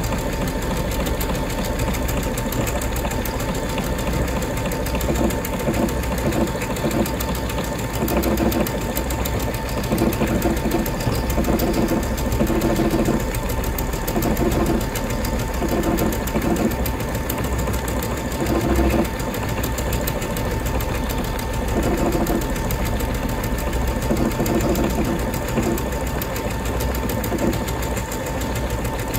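Brother Innov-is VQ2 computerised sewing machine running steadily, stitching a sequence of lettering and wide decorative stitches through denim. Its rapid needle strokes sit over a steady high whine, with a lower hum that comes and goes.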